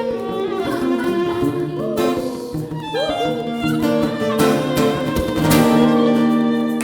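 Instrumental break of a live acoustic song: a bowed violin melody with sliding notes over guitar accompaniment.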